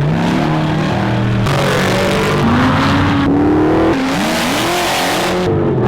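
Off-road racing truck's engine revving hard and accelerating, its pitch climbing in several sweeps, with a loud rushing noise through most of the stretch.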